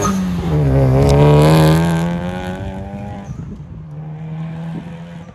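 Honda Civic Type R's turbocharged four-cylinder engine accelerating hard past and away. The revs drop at a gear change right at the start, climb again for about two seconds, then level off and fade as the car moves into the distance.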